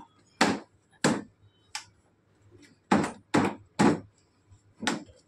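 Sharp knocks on hard plastic, about seven at irregular intervals with three in quick succession in the middle, as the roll-bar frame of a children's electric ride-on jeep is knocked down into its mounts during assembly.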